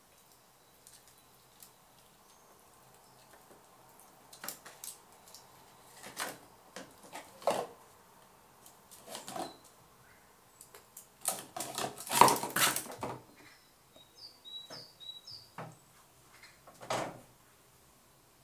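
Irregular clicks, knocks and scrabbling of a red squirrel handling a walnut and nudging a light plastic tub on a windowsill, with the loudest clatter about twelve seconds in.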